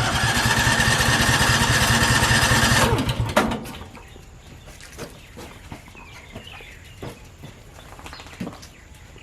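Gasoline sawmill engine catching and running for about three seconds, then dropping in pitch and dying, followed by a quiet stretch. This fits the fuel problem blamed for the stalling, as the mill keeps running out of fuel.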